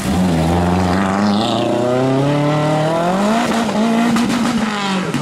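Lancia Delta Integrale rally car's turbocharged four-cylinder engine under hard driving through a bend. The revs dip at the start, hold low, then climb steadily from about two seconds in as the car accelerates away, over a hiss of tyres on the wet road.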